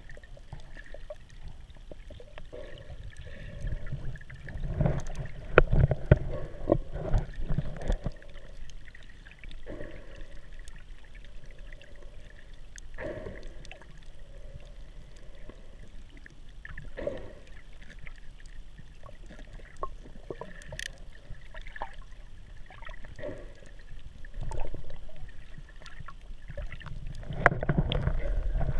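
Underwater camera sound: muffled water sloshing and low rumbling surges as the camera moves through shallow water, with a few faint clicks. The surges are loudest about five seconds in and again near the end.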